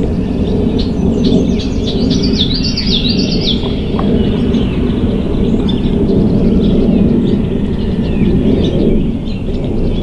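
A songbird sings a quick run of high, repeated notes from about one to three and a half seconds in, with scattered fainter chirps, over a steady low rumble.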